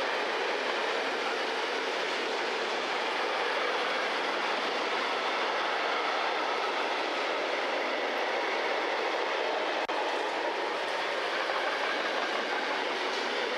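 Freight train wagons rolling past close by: a steady, even rolling noise of steel wheels on the rails as a long string of tank, covered and hopper wagons goes by.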